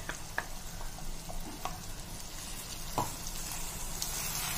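Brinjals frying in oil in a stainless steel pot, sizzling steadily, with a few light clicks and scrapes as ground masala paste is spooned in and stirred with a wooden spatula; a sharper knock comes about three seconds in.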